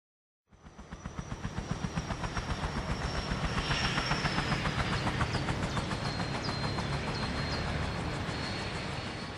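A rhythmic rapid clatter, several pulses a second, with a thin high whine held above it; it fades in after half a second of silence, builds to its loudest mid-way and eases off near the end.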